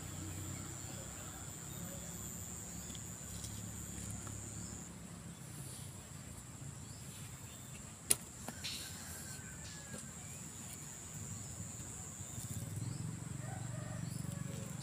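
Faint outdoor ambience: a low steady rumble under a thin, high, steady whine that breaks off for a few seconds in the middle. A single sharp click comes about eight seconds in.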